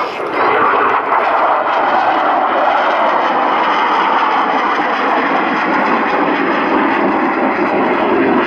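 Twin Klimov RD-33 turbofans of a MiG-29 Fulcrum in a display manoeuvre: a loud, steady jet roar that sinks lower in pitch toward the end.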